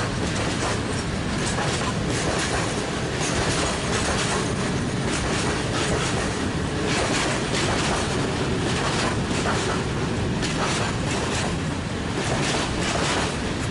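A long train of loaded coal wagons rolling past, its wheels clacking over rail joints in a steady run of knocks over the continuous rumble.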